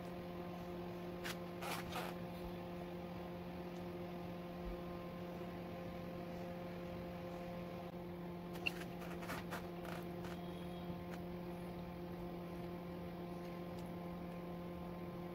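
Steady low electrical hum, with a few faint light taps and clicks about a second or two in and again around nine to ten seconds, as vegetable slices and grated cheese are laid into a metal baking tray.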